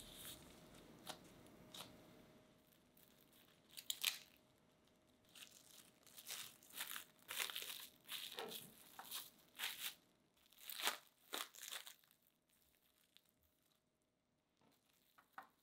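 Plastic cling wrap crinkling in a run of short rustles as it is folded around a slab of pie dough and pressed flat by hand.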